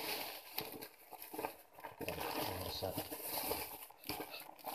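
Packaging rustling in uneven bursts as the next baby item is taken out and handled.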